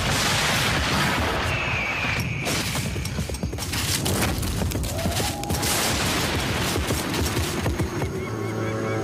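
Dense run of booming and crashing sound effects, many sharp hits over a heavy rumble, with background music. About eight seconds in, a sustained music cue takes over.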